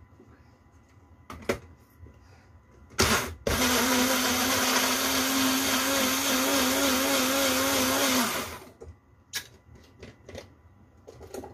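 Small personal bullet-style blender running for about five seconds, blending peeled melon, its hum wavering a little near the end. Before it starts there are clicks and a knock as the cup is seated on the base, and a few clicks after it stops as the cup is handled.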